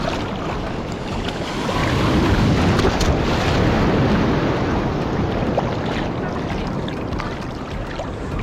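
Ocean surf washing onto the beach, with wind on the microphone; the surge swells about two seconds in.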